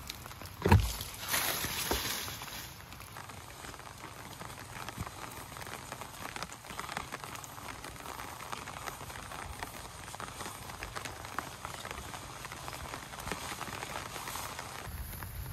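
Steady rain falling, an even hiss dotted with many small drop ticks. A sharp low thump comes just under a second in, the loudest sound, followed by about a second of louder rustling noise.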